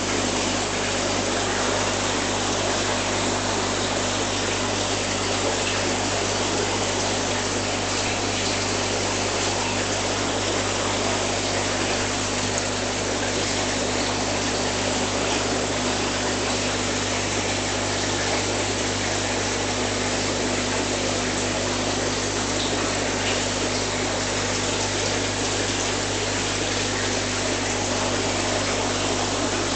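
Aquarium filtration and aeration running: a steady rush of moving and bubbling water with a constant low hum.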